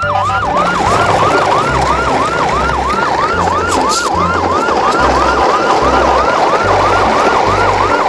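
Electronic yelp siren with a fast rise-and-fall wail repeating about three times a second, over a low pulsing beat.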